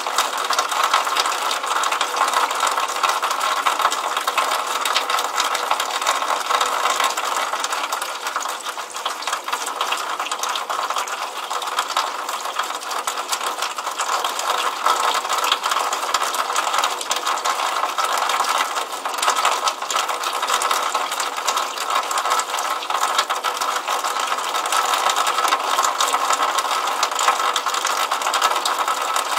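Water running from a drainpipe outlet and splashing into a puddle: a steady, dense spatter of many small rapid splashes.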